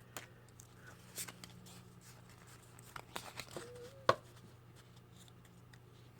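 Faint handling of trading cards and their foil pack: a few soft taps and rustles, the sharpest about four seconds in.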